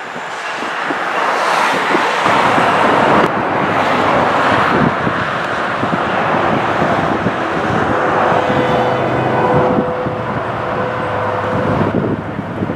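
SMART Nippon Sharyo diesel multiple unit approaching, its engine and wheel rumble mixed with road traffic noise; a faint steady hum comes in about 8 seconds in and stops near the end.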